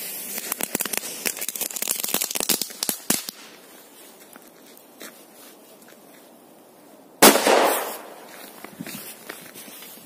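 A Korsar-4 firecracker's lit fuse sputters and crackles for about three seconds, then the firecracker goes off about seven seconds in with a single sharp bang that fades out quickly.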